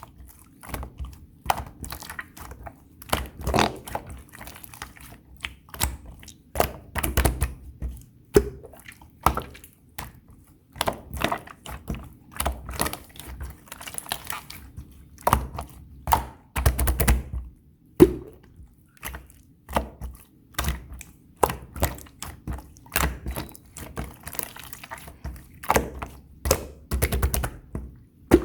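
Clear slime being squished, pressed and poked by hand, giving irregular wet clicks and small pops with soft thuds, several a second.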